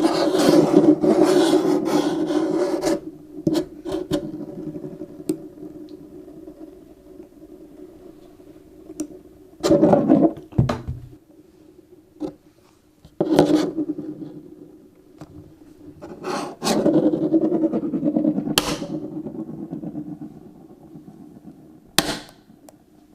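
Eggs being cracked: sharp taps of shell on a hard edge and the crunch and scrape of shells breaking open, coming in several separate bursts, the last a single sharp crack near the end, over a steady low hum.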